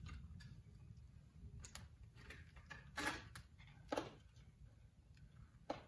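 Faint, scattered knocks and scrapes of drytooling ice-axe picks and crampons on rock, four or so spread over a few seconds, over a low steady rumble.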